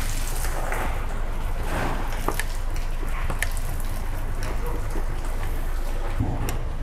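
Steady low workshop hum with a few light metallic clicks and taps as the electromagnetic all-wheel-drive coupling is pried off the rear axle of the car.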